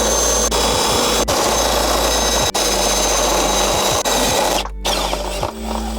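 Cordless drill with a step bit boring out a pilot hole in a dashboard panel. It runs steadily with a few momentary breaks, then stops about four and a half seconds in once the hole is done.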